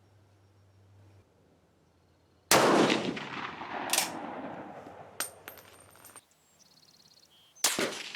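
Swiss K31 straight-pull rifle firing a shot about two and a half seconds in, with a long echo, then a few sharp metallic clicks, followed by another loud gunshot near the end.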